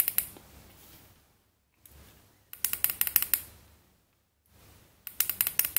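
Fire button of a Wismec Reuleaux RX2/3 box mod clicked rapidly in runs of about five presses, the five-click sequence that switches the mod on or off. A run finishes right at the start, then two more quick runs of clicks follow, one a little after two seconds in and one near the end.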